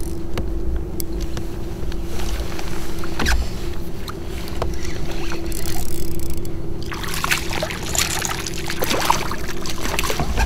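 A hooked smallmouth bass splashing and thrashing at the surface beside a kayak as it is played in, the splashing starting about seven seconds in.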